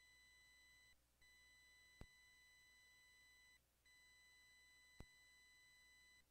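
Near silence, with a faint, steady high-pitched electronic tone that cuts out briefly twice, and two faint clicks three seconds apart.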